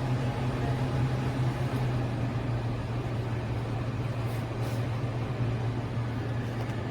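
KGOGO portable air conditioner running: a steady low hum under an even rush of fan air.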